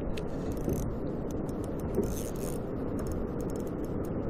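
Small spinning reel cranked steadily, reeling in a hooked fish, its gears and line roller giving light clicks and scratches over a steady low rush of wind on the microphone.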